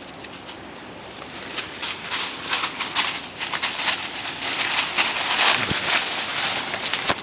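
Dry leaves and twigs rustling and crackling as the brush is pushed through, with many quick snaps and crunches that grow louder after a second or so.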